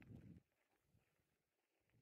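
Near silence: a brief low rumble that cuts off about half a second in, then only faint, scattered ticks of a mountain bike rolling over a gravel forest trail.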